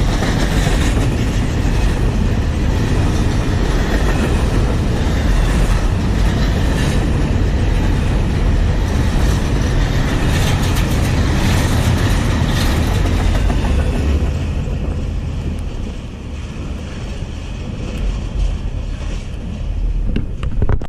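A freight train's cars rolling past close by, wheels clattering over the rail joints with a steady low rumble. The noise eases off about two-thirds of the way through, then cuts off suddenly.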